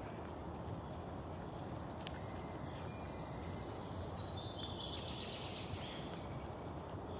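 A songbird singing one long, fast trill that slides down in pitch over about four seconds, starting about two seconds in, over a steady background hiss.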